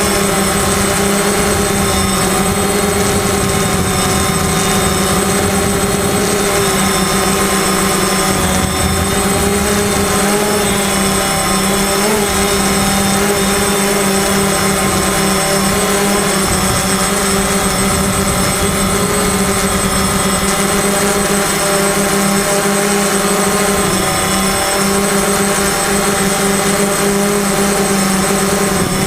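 FPV drone's electric motors and propellers running in flight, a steady loud whine with a high thin tone above it that wavers only slightly in pitch.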